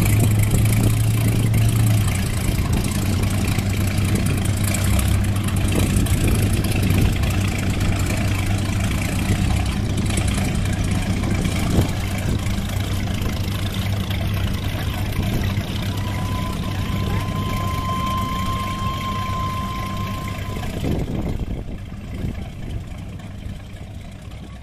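Inboard engine of an antique wooden runabout idling with a steady low hum as the boat motors slowly through the harbor. It fades away over the last few seconds.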